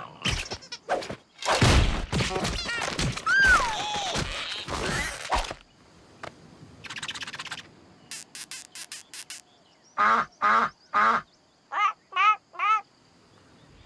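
Cartoon sound effects and character vocal noises. A quick flurry of knocks and clicks with a gliding, falling squeal comes first, then a short hiss and a run of small clicks. Near the end there are three short vocal grunts and three quick rising-and-falling squeaks.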